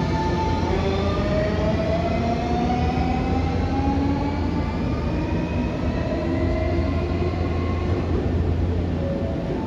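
Nankai 8300-series electric commuter train accelerating away from the platform: several motor tones rise steadily in pitch over the first five or six seconds, over a steady low hum.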